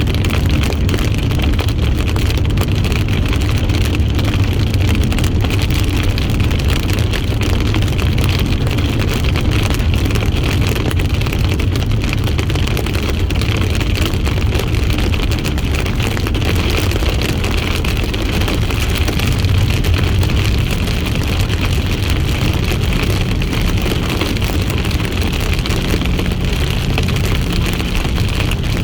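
Steady road and engine noise heard from inside a moving car's cabin at highway speed: a low, even rumble with a fainter hiss above it.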